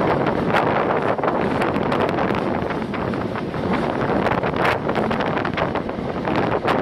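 Wind buffeting a phone microphone held out of the open window of a moving metre-gauge electric train. Under it runs the train's running noise, with many irregular small clicks and knocks.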